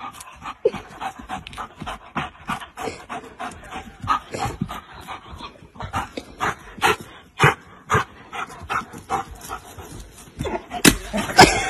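German shepherd jumping up and biting at a thin tree trunk, panting, with a quick run of short knocks and scrapes a few times a second; two sharp cracks near the end.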